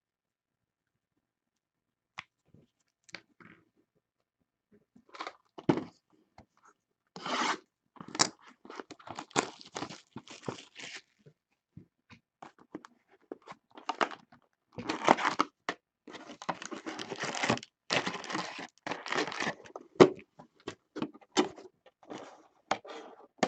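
Packaging of a trading-card box being torn open and crumpled: a few light clicks at first, then repeated ripping and crinkling in stretches, with handling knocks, one sharp knock about twenty seconds in.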